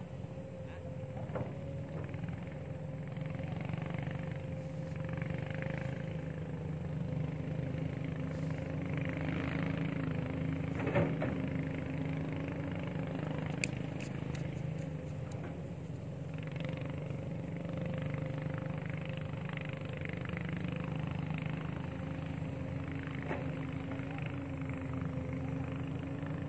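A motor running steadily in the background with an even, slightly wavering hum, with a few short sharp clicks about halfway through.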